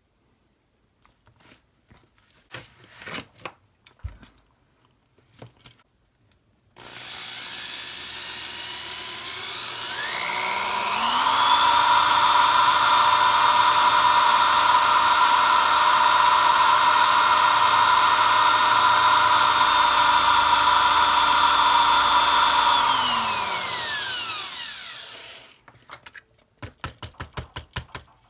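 Power drill with a small 5/64-inch bit drilling a pilot hole into a die-cast toy car's rivet. The drill starts about seven seconds in and speeds up to a steady high whine. It holds there for about twelve seconds, then winds down. Scattered handling clicks come before it and a quick run of clicks comes near the end.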